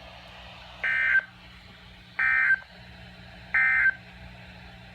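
Emergency Alert System end-of-message data signal: three short bursts of digital data tones about a second and a half apart, over a faint low hum.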